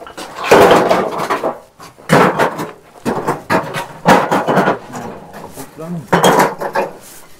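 People talking, with occasional knocks and clinks of brick-and-mortar work.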